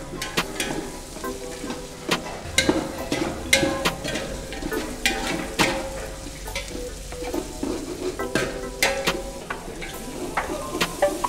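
Cubed vegetables sizzling in hot oil in a large metal pot while a perforated metal ladle stirs them, with irregular scrapes and clinks of the ladle against the pot.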